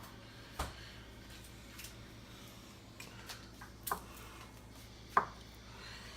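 Knife cutting a firm log of seasoned butter into slices, knocking on a cutting board a few separate times. The sharpest knock comes about five seconds in.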